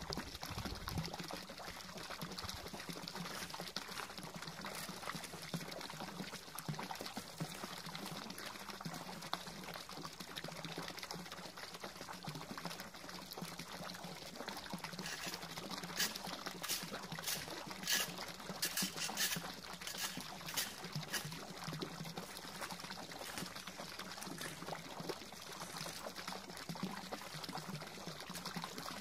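A pond fountain's water jet pouring steadily into the pond's surface. About halfway through, a cluster of short sharp clicks.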